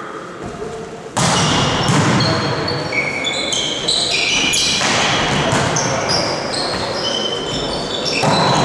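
Volleyball play in a gym: the ball being struck and shoes squeaking on the court floor, over a din of players' and spectators' voices. The sound jumps suddenly louder about a second in.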